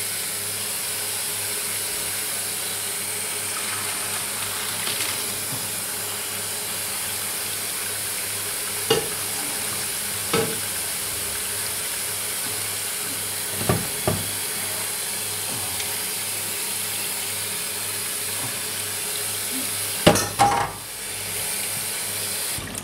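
Kitchen tap running steadily into a stainless steel sink while pasta is drained into a colander, with a few clanks of the pot and colander against the sink. The loudest clatter comes near the end, and the running water cuts off just after it.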